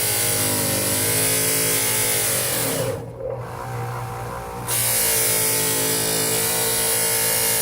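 Grinder motor running with a buffing wheel polishing 1/4-inch aluminium with blue compound; the motor's pitch dips and recovers as the work is pressed into the wheel. About three seconds in, the hiss of the buffing drops out for a second and a half, leaving only the motor hum, then comes back.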